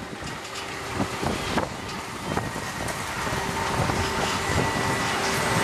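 Ferris wheel machinery heard from a moving gondola: a steady mechanical hum with a thin high whine, a few sharp clicks and knocks, and some wind noise.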